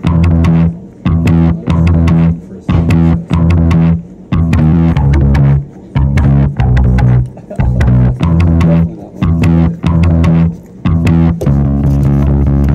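Background music in short stop-start phrases about once a second, which becomes one continuous held passage near the end.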